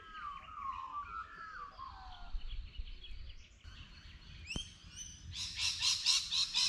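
Dawn chorus of Australian birds. A fluting, warbling song glides up and down at first, then from a little past halfway a dense chatter of rapid, repeated chirps sets in and grows louder.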